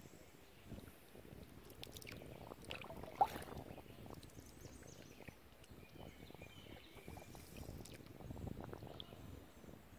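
Faint water sounds and paddle noise from a canoe on the move, with one sharp knock about three seconds in.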